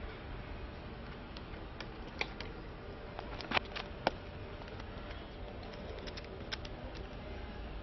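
Scattered light plastic clicks and taps from handling a laptop keyboard while fitting it into the laptop, with a few sharper clicks about midway and a small cluster near the end, over a faint steady background noise.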